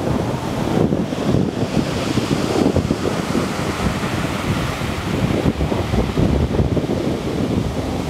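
Storm surf: heavy waves breaking and foaming water washing up over a shingle beach, with wind buffeting the microphone.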